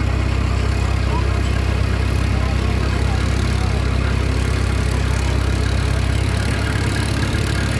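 Passenger riverboat's engine running steadily under way, a constant low drone with the hiss of water and wind over it.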